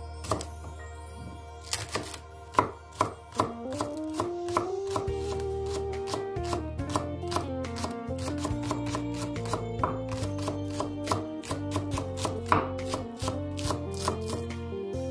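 Chef's knife slicing spring onions into rings on a wooden cutting board: a long run of sharp taps of the blade on the board, a few a second, over soft background music.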